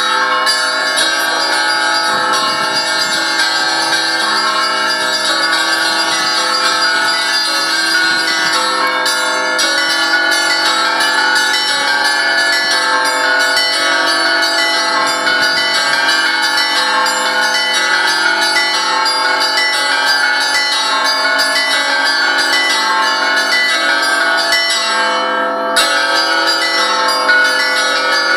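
Russian Orthodox church bells ringing in a continuous peal, many bells of different pitches sounding together and overlapping without a pause.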